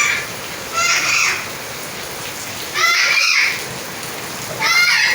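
Steady rain falling in a continuous hiss. Three short high-pitched voice sounds rise over it, about a second in, at three seconds and near the end.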